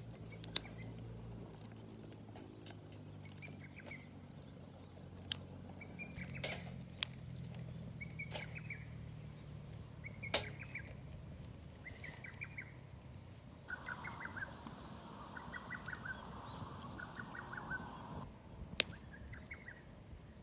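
A bird calling over and over, a short trilled call every second or two, with a few sharp cracks here and there.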